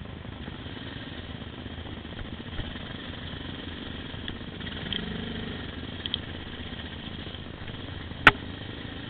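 Engine of an off-road trail vehicle running steadily at low speed, with a single sharp knock about eight seconds in.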